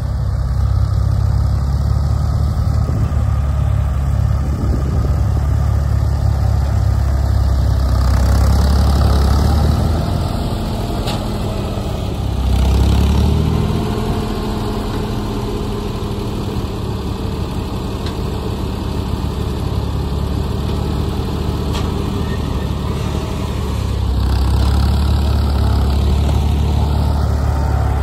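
Ford 4000 tractor's engine running, its level rising and falling in a few louder stretches as the tractor works its front-loader bale grapple to clamp and lift a bundle of small square hay bales.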